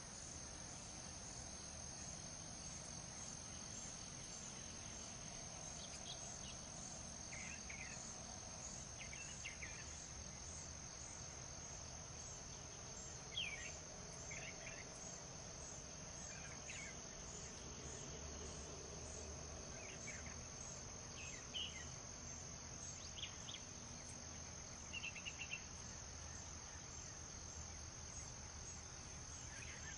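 Crickets trilling steadily and faintly, over a low, even background rumble. About a dozen short, higher chirps come in at irregular intervals, one every second or two.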